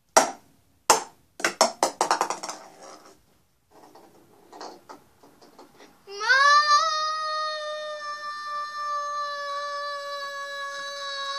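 A girl's voice holding one long, high sung note that starts about six seconds in, sliding up briefly before it settles and stays steady. Before it come a few short, loud vocal outbursts.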